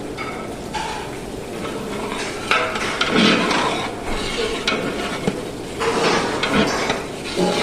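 A metal spoon scraping and stirring food in a large cooking pot, in irregular strokes, with sizzling underneath.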